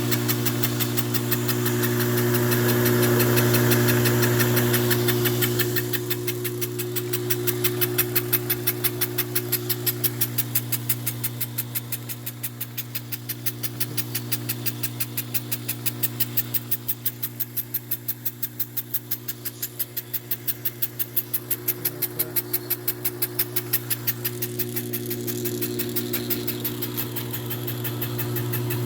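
Little Giant 50 lb mechanical power hammer running: a steady electric-motor hum under an even, rapid pounding of the ram at about four blows a second.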